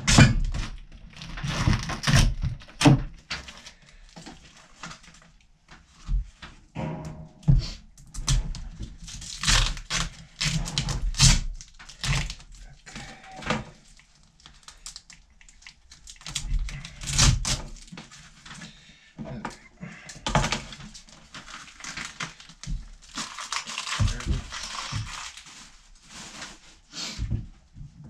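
Hands unwrapping and handling packaging: plastic crinkling and tearing, with irregular knocks and thunks as items are set down on a wooden counter.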